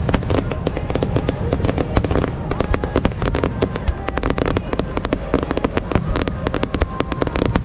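Aerial fireworks going off in a dense barrage: a rapid run of sharp bangs and crackling pops, several a second, over a continuous low rumble.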